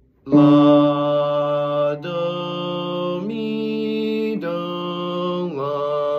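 A man's voice singing a solfège vocal exercise as a string of long held notes, each about a second or more, stepping from pitch to pitch. The first note starts a moment in and the last is still held as the sound ends.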